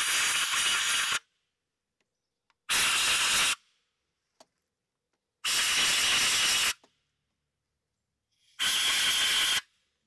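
Compressed air hissing in four short bursts of about a second each, blowing debris out of the injector bores and prechambers of a Mercedes OM617 diesel's cylinder head.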